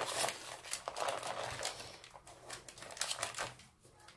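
Baking paper crinkling and rustling in irregular crackles as a sponge cake is rolled up in it, thinning out and fading in the last second.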